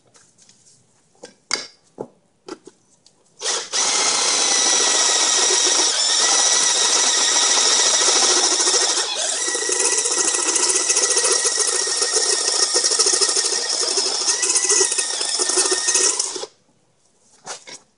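19.2-volt DieHard cordless drill running a step bit through a metal spark plug non-fouler, cutting it out to take an O2 sensor. A few light knocks come first, then the drill runs continuously for about thirteen seconds and stops suddenly.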